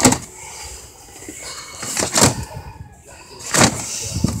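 Boxed plastic action-figure packages knocking and clattering on store shelf pegs as they are handled, with three sharp knocks: one at the start, one about two seconds in and one near the end.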